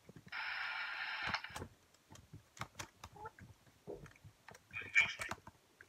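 Light clicks and taps of handling, with a steady hiss lasting about a second near the start.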